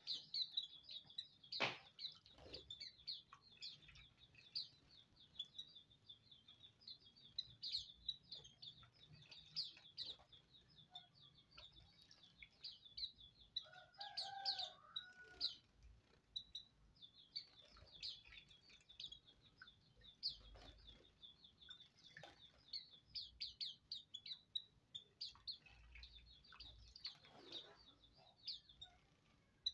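A caged flock of pleci auriventer (Hume's white-eyes) calling: a dense stream of short, high chirps throughout. About halfway through there is a brief, lower two-toned sound.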